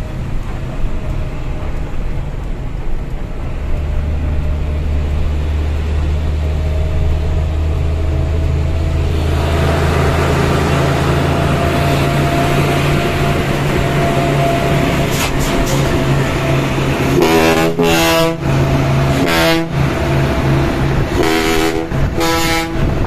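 Diesel engine of a Fuso Fighter dump truck running, heard from inside its cab, getting louder about ten seconds in as it pulls harder. Late on, truck horns sound in three loud pulsing blasts, the first and last each over a second long.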